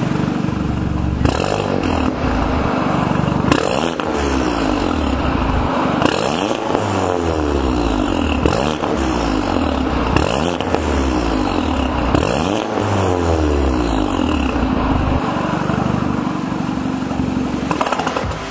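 Audi S1 8X's turbocharged 2.0-litre four-cylinder, breathing through a catless, valve-controlled aftermarket exhaust, idles for about a second and is then revved repeatedly while standing still, the pitch climbing and falling roughly every two seconds.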